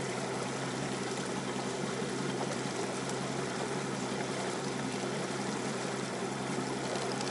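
Bass boat moving slowly across the lake: a steady rush of water along the hull over a low, even motor hum.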